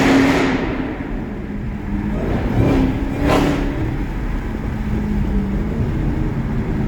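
Dodge SRT Hellcat's supercharged 6.2-litre HEMI V8 being revved in place: a rev dying away at the start, two quick throttle blips about halfway through, then settling back to idle. The supercharger whines on the revs.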